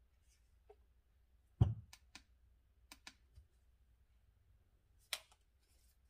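Plastic jar and base of a Sunbeam FitBlend rechargeable portable blender being handled, not running: a thump about one and a half seconds in, a few light clicks, and a sharper click about five seconds in.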